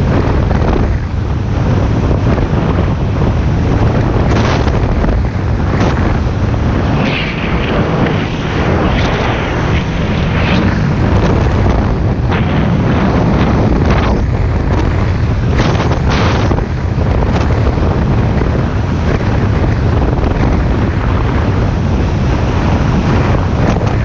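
Wind buffeting the microphone on a speedboat running at speed over open water, over the steady drone of its engine, with water splashing against the hull several times in the middle.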